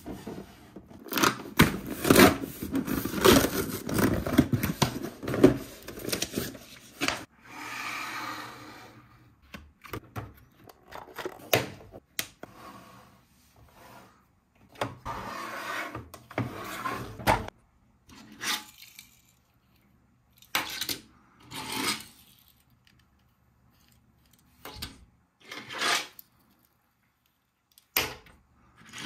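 Hands handling a cardboard toy box and plastic Hot Wheels track pieces: rubbing, scraping and clattering over the first several seconds, then short scrapes and separate sharp clicks and knocks of plastic parts with pauses between them.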